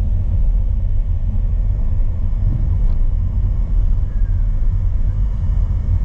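Steady low rumble of a car driving along a country road, heard from inside the cabin.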